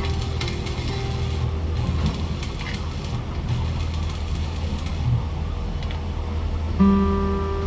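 Machinery running with a steady low hum and scattered clicks and rattles. An acoustic guitar strum comes in near the end.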